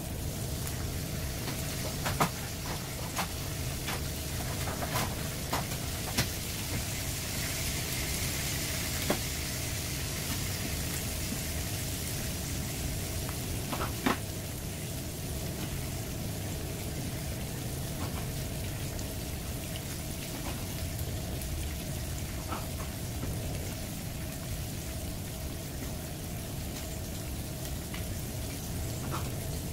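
Flour-dredged whole sea bass shallow-frying in hot oil in a pan: a steady sizzle with sharp spits and pops now and then.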